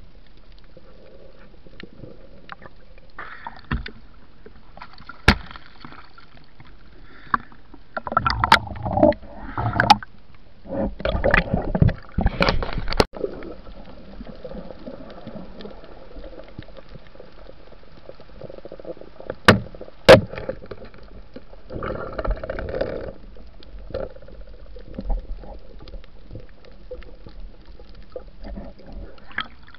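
Underwater water noise picked up by a diving camera, with bursts of gurgling water movement and several sharp knocks, the loudest two close together about 20 seconds in.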